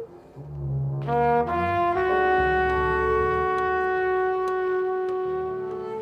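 Background music: a low phrase climbing into a long held chord about two seconds in, which fades near the end.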